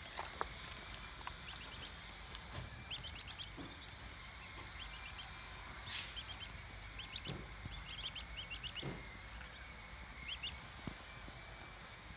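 Australian wood duck ducklings peeping, short high notes in quick clusters of several, coming on and off.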